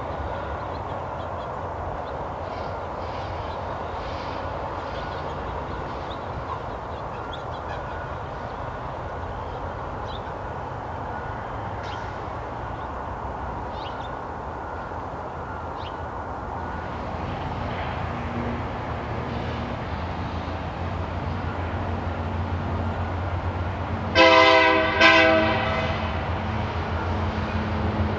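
Union Pacific SD70M diesel locomotive leading a freight train approaches, its engine rumble growing louder, and sounds its air horn in two short blasts near the end.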